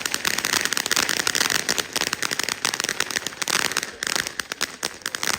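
A string of firecrackers going off, a fast unbroken rattle of sharp cracks that thins briefly about four seconds in and then picks up again.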